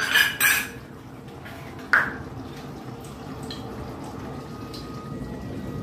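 Dum aloo gravy simmering in a steel kadai, with a steady low bubbling and faint scattered pops. There are brief clattering noises at the start and a single sharp knock about two seconds in.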